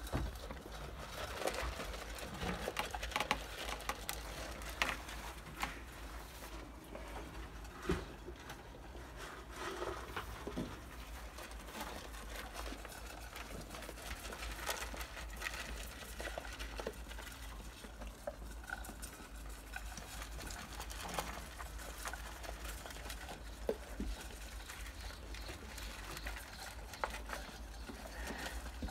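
Saanen kid goats eating pellets from plastic bowls: irregular crunching and small clicks as their muzzles knock about in the bowls, over a steady low hum.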